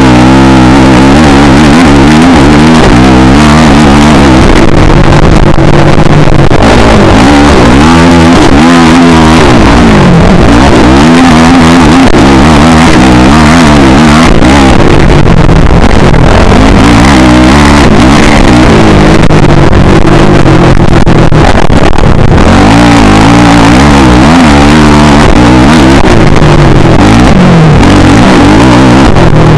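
Motocross bike engine heard from an onboard camera, revving up and falling back over and over as the bike accelerates, shifts and brakes around the track. Very loud throughout.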